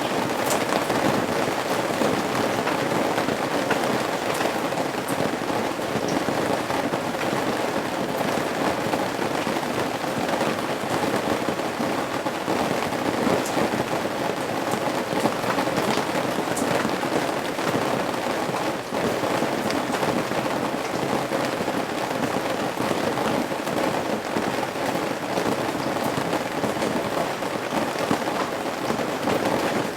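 Steady rain falling on house eaves: a dense, even rush of rain with frequent sharp individual drips and drop impacts scattered through it.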